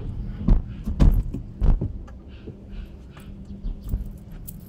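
Camera handling and footsteps as the person moves around: a few loud thumps in the first two seconds, then light rustling and small clicks, over a steady low hum.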